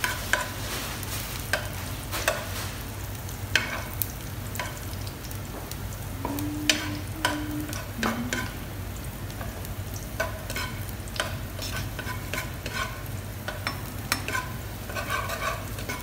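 Metal slotted skimmer stirring vegetables in broth in a wok, with repeated sharp clinks and scrapes against the pan over a steady sizzle of the cooking pan.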